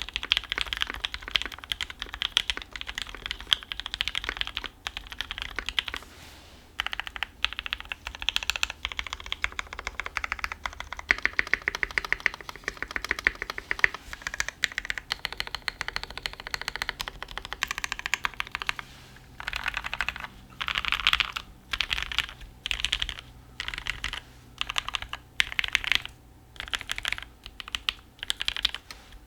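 Typing on a Percent Studio Skog Reboot mechanical keyboard with an aluminium plate, a silicone dampener between plate and PCB, and lubed, filmed Gateron Ink Black V1 linear switches under GMK keycaps. Fast continuous typing for the first several seconds, then uneven runs, and from about two-thirds through short bursts of keystrokes with pauses between them. A low PC hum runs underneath.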